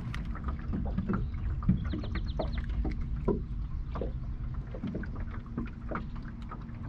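Steady low rumble of wind and water around a small fishing boat, with scattered knocks and clicks from handling gear on board and a quick run of high ticks about two seconds in.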